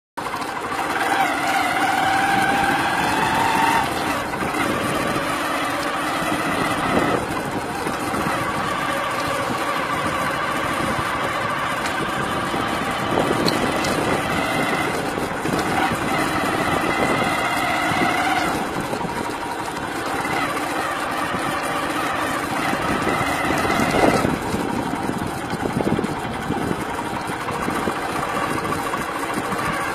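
Engine of a moving vehicle running under way. Its pitch climbs slowly and drops back several times, as at gear changes, over steady road and wind noise.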